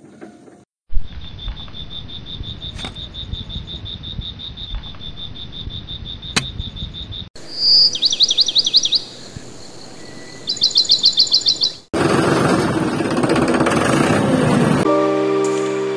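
Dubbed-in nature sounds: an insect, likely a cricket, trilling steadily over a low rumble for the first seven seconds, then rapid high bird chirps in two bursts. About twelve seconds in, a loud rough noise takes over.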